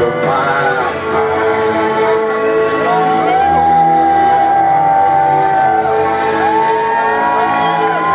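Live band music played loud over a concert PA and heard from within the audience, with long held high notes from about three seconds in that bend up into each note and fall away at its end.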